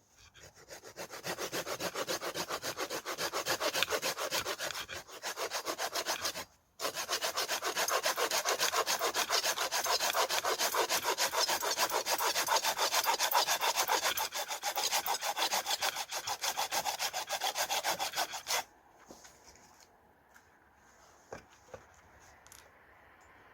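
Hand saw cutting firewood with fast, steady back-and-forth strokes. There is a brief pause about a third of the way in, and the sawing stops several seconds before the end, leaving only a few small clicks and knocks.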